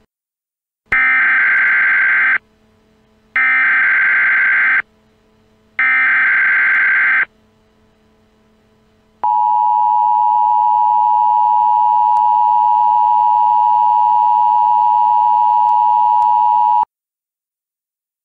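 Emergency Alert System tones: three raspy, warbling digital data bursts of the SAME header, each about a second and a half long, then after a short gap the steady two-tone EAS attention signal (853 and 960 Hz) for about seven seconds, cutting off abruptly. The attention signal marks the start of an emergency alert message.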